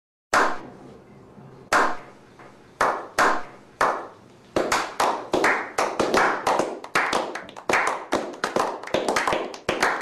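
A slow clap: single hand claps, spaced about a second apart at first, are joined by more hands and speed up into steady applause from a small group of men.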